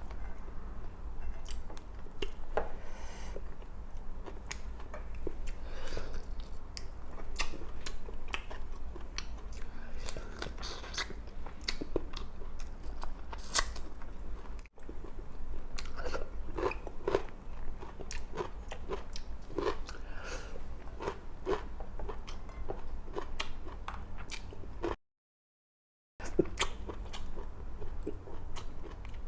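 A person chewing and biting food close to the microphone, with many short sharp clicks through the chewing. The sound drops out completely for about a second near the end.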